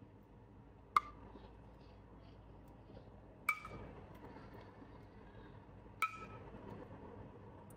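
A spoon clinks against the rim of an enamel saucepan three times, about two and a half seconds apart, each strike leaving a brief ring. The clinks come as melted kajmak and oil are spooned out of the pan.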